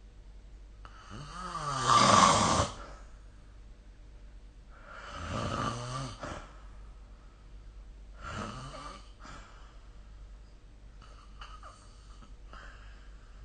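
A sleeping person snoring: three snores about three seconds apart, each fainter than the one before, the pitch of each rising as it goes.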